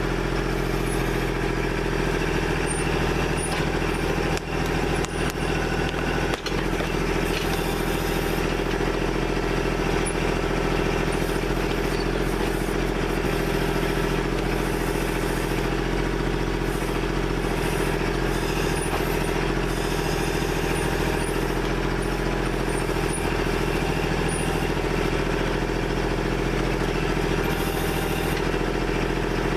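Kubota backhoe's diesel engine running steadily at a constant speed, with a few faint knocks a few seconds in.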